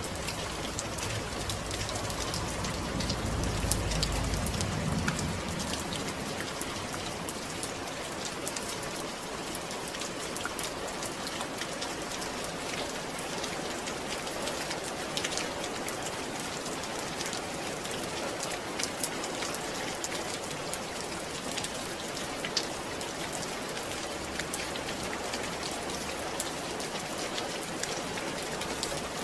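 Steady rain falling, a dense hiss with individual drops ticking through it. A low rumble swells briefly a few seconds in.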